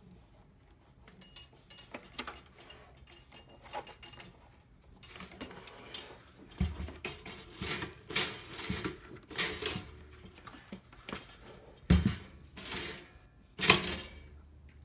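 Hands handling a stainless steel two-slice toaster: faint clicks at first, then a run of metallic clinks and clatter with a few heavier knocks, the loudest near the end.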